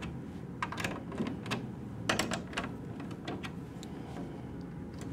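Drum key fitting onto and turning the chrome tension rods of a tom, a string of sharp, irregular metallic clicks and ticks as the bottom head is brought up to tension a turn at a time.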